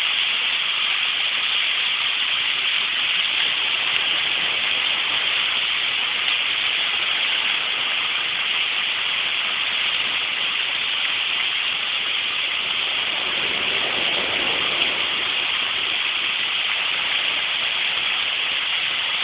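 Fountain water jets splashing into their basin, a steady rushing hiss.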